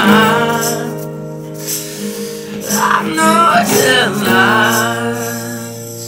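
A song with singing over guitar, recorded on an iPhone: a held, wavering sung note fades out in the first second, a short sung phrase comes around the middle, and guitar chords ring on near the end.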